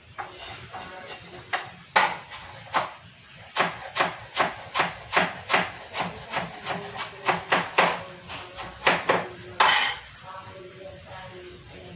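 Kitchen knife chopping on a wooden cutting board: a run of sharp knocks, about three a second, with one longer, noisier stroke near the end.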